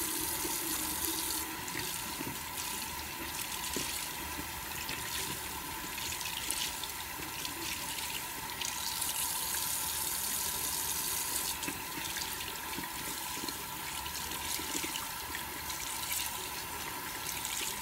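Bathroom sink tap running steadily into the basin, the water splashing as hands squeeze and rinse a makeup sponge under the stream.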